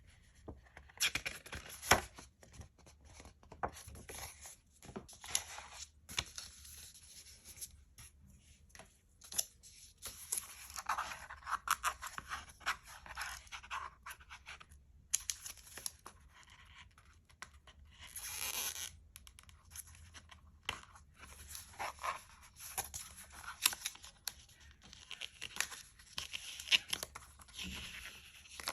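Paper and plastic packaging being handled during unboxing: tearing and rustling, broken up by irregular clicks and taps, with a longer swish about two-thirds of the way through.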